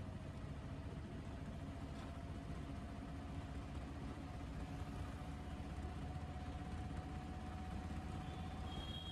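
A motor vehicle's engine running steadily: an even low rumble with a faint steady whine above it. A higher thin tone joins near the end.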